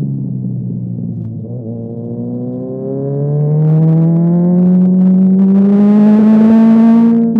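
Sport motorcycle engine: its pitch sinks as it slows for the first couple of seconds, then it pulls hard, pitch climbing steadily for about four seconds, before dropping abruptly near the end.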